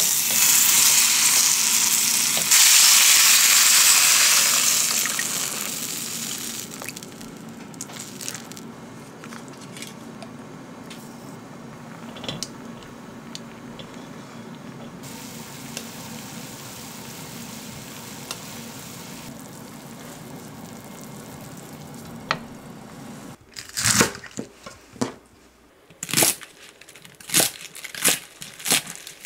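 Whole peeled onions sizzling loudly in a little oil in an enamel saucepan, with tongs turning them. The sizzle dies down to a quiet simmer once the onions sit in broth. Near the end comes a run of sharp knife chops through komatsuna stalks on a wooden cutting board.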